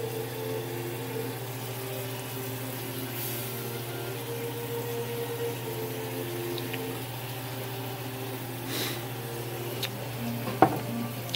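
Steak, peppers and sauce simmering and bubbling in a frying pan on the stove, over a steady low hum, with a single sharp knock near the end.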